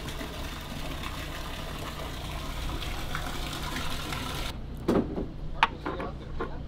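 A steady low mechanical hum under a rushing hiss. Near the end the hiss drops away, and a few sharp knocks and clicks come from hands working a fitting on an inflatable tender's transom.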